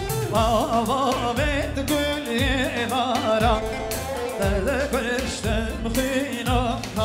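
Kurdish folk dance music played live by a wedding band: a wavering, ornamented melody line over a drum beat.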